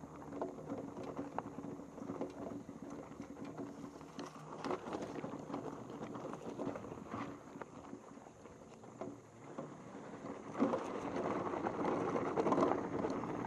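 Electric enduro bike ridden over grass and gravel: tyres crunching and the bike rattling with many irregular knocks over a faint steady hum. It gets rougher and louder about ten seconds in.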